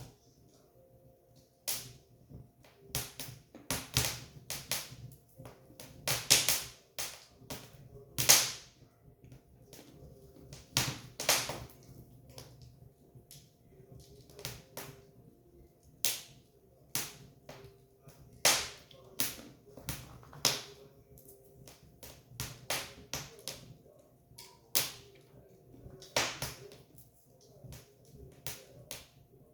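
Firewood burning, crackling with irregular sharp pops of varying loudness, the loudest about eight seconds in, over a faint steady hum.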